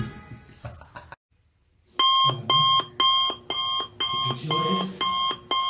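Music that stops about a second in, then after a short silence an electronic alarm clock beeping loudly, about two beeps a second.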